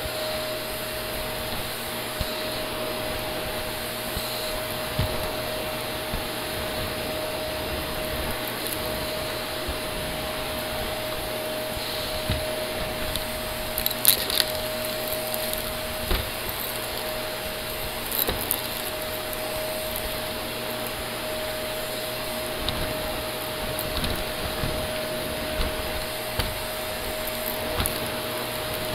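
Shark Navigator upright vacuum running steadily with a constant motor whine as it works over a shaggy rug, with scattered sharp clicks and crackles of debris being sucked up, the loudest cluster about halfway through.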